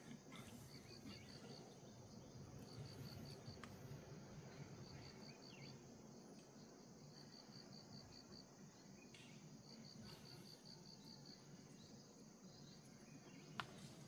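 Faint insects chirping: short trains of rapid high chirps repeat every second or two over a steady high hiss. A single sharp click comes near the end.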